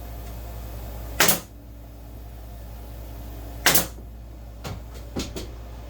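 Two sharp clacks about two and a half seconds apart, then a few lighter wooden taps, as the wedge strip is fastened to secure the wax foundation to a wooden beehive frame's top bar. A steady low hum runs underneath.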